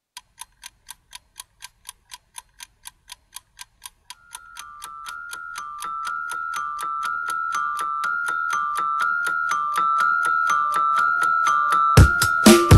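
Background music: a steady ticking beat about four times a second, joined after about four seconds by a two-note electronic keyboard riff that swells, with heavy beats coming in near the end.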